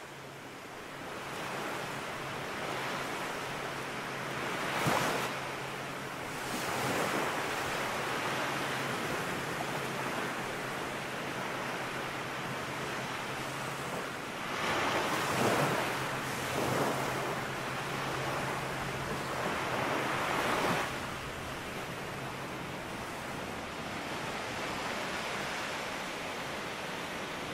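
Wind rushing over the microphone, swelling louder in several gusts, over a faint low hum.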